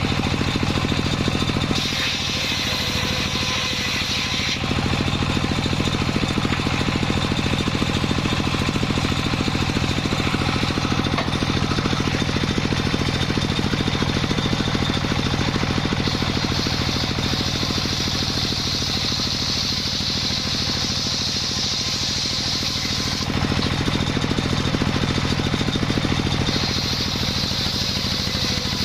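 Sawmill machinery running steadily while the saw cuts a jackfruit log, with a higher cutting hiss that swells in for several stretches of a few seconds each and then falls back.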